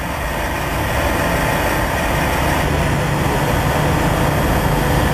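A steady low drone with a noisy hiss over it, swelling in just before and then holding level.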